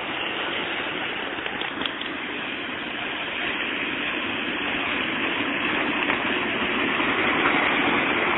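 Tram running on its rails, a steady rumble of wheels and motor that grows louder as it picks up speed, with a few light clicks.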